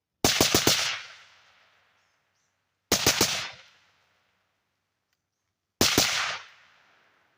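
Suppressed .223 carbine, a 13.9-inch mid-length AR with an Otter Creek Labs Polonium K suppressor, firing three quick strings of several shots each, about three seconds apart, each string trailing off over about a second.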